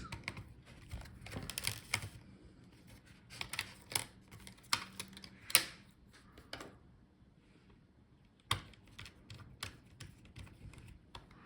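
Scattered small clicks and taps of a precision screwdriver and tiny screws being worked out of a laptop's plastic palmrest, with a quiet pause of a couple of seconds past the middle.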